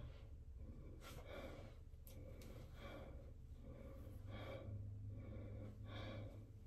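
Faint, heavy breathing, soft breaths out about once a second through pursed lips, from the effort of holding the arms up to style hair.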